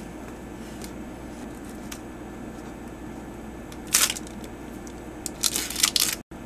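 Foil Magic: The Gathering booster pack wrapper crinkling as it is handled: one short crinkle about four seconds in, then a quick cluster of crinkles near the end that cuts off abruptly.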